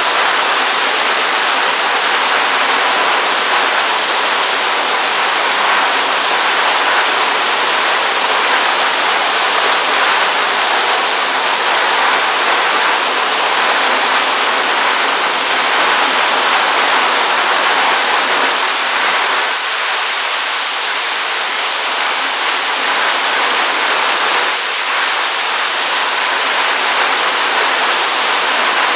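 Heavy downpour: a loud, steady hiss of rain falling on a street, roofs and trees.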